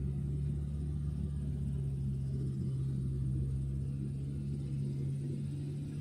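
Diesel engine of a forestry log loader running steadily at constant speed: a low, even hum that holds one pitch.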